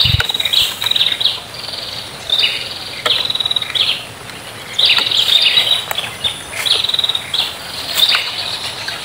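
High chirping calls from birds or insects, in short buzzy bursts repeating about once or twice a second, with a few faint clicks between them.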